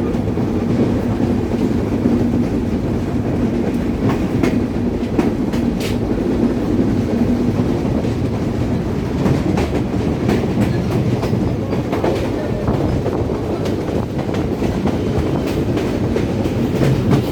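Diesel intercity passenger train running on the line: a steady low rumble with irregular clicks of the wheels over rail joints, and a steady hum in the first half. It is running slowly because the sleepers on this line are being replaced.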